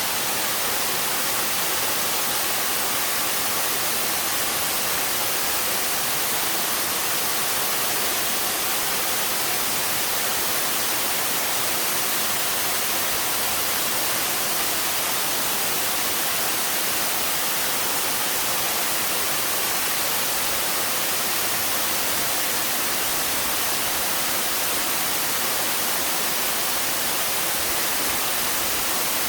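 Waterfall pouring into a mountain stream: a steady, unbroken rush of falling water, strongest in the high hiss.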